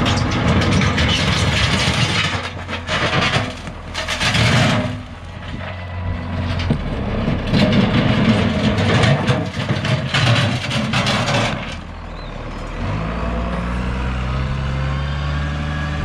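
Tractor engine labouring and revving as the front-end loader bucket bears down on a concrete slab, with several loud rough surges through the first twelve seconds. From about thirteen seconds the engine settles into a steadier drone as the tractor backs away.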